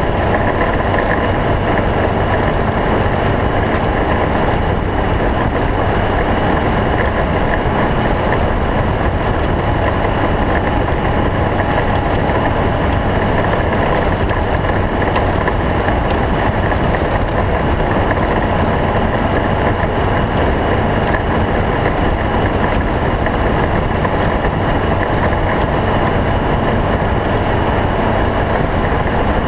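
Stock-class Volkswagen Beetle desert race car driving: its air-cooled flat-four engine runs steadily under a constant wash of wind and driving noise.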